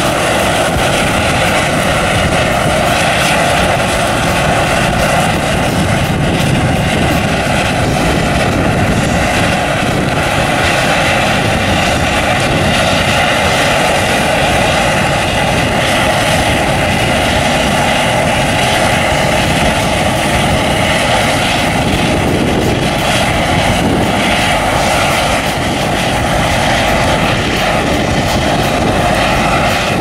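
Claas Lexion 530 combine harvester running steadily under load while cutting wheat and unloading grain through its auger, a continuous loud engine and threshing drone.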